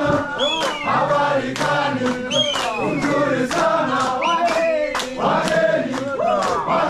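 Many men's voices chanting and shouting together in call-and-response, with rising shouts over one another and sharp clicks now and then, as a group of porters hauls a large dome tent into place.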